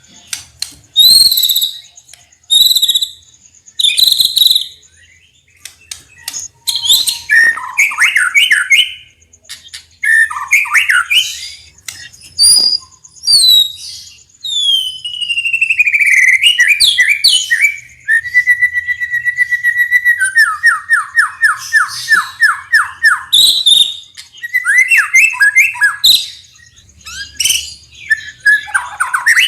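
White-rumped shama singing a loud, varied song of sharp whistles and chattering phrases. Midway comes a long whistle gliding downward, followed by a fast trill of repeated notes that falls in pitch.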